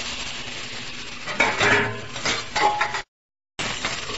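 Vegetables sizzling in oil in a kadhai, then, about a second in, a spoon clinking and scraping against the pan as they are stirred. The sound drops out completely for half a second near the end.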